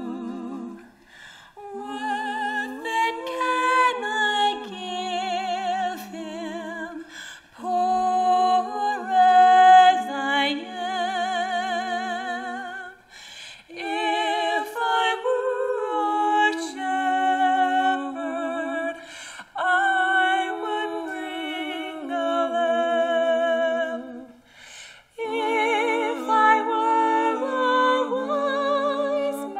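Female vocal trio singing a slow Christmas carol in close three-part harmony, with vibrato, in phrases of about five to six seconds separated by short breaths.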